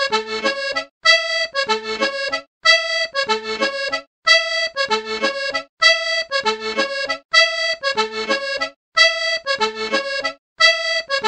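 Instrumental intro music: one short melodic phrase looped over and over, about every one and a half seconds, with a brief silence between repeats.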